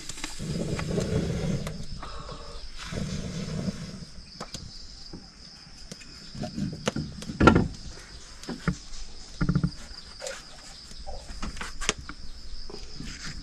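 Scattered knocks and clatters, the loudest about seven and a half seconds in, as firewood and utensils are handled at an open cooking fire. A steady high-pitched insect drone runs behind.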